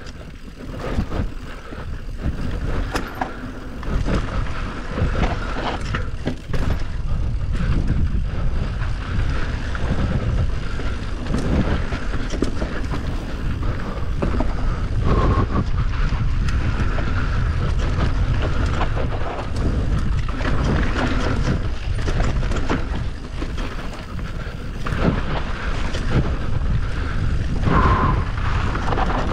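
Enduro motorcycle being ridden over a rough trail: the engine revs up and down, wind buffets the microphone, and there are frequent knocks from the bike over the bumps.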